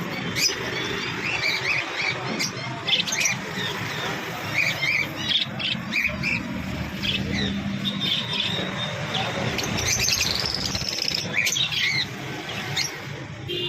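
Small pet parrots, lovebirds, chirping and squawking in many short overlapping calls, with a low steady hum underneath.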